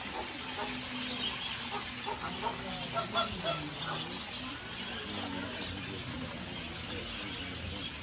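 Flamingos honking: a run of short, goose-like calls from several birds, loudest about three seconds in.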